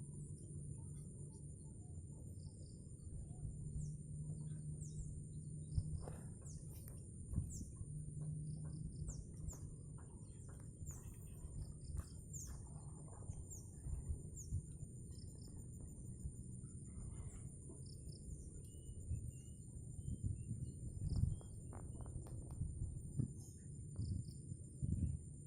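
Insects trilling steadily at a high pitch, with short falling bird chirps every second or two over a constant low rumble and a few scattered knocks.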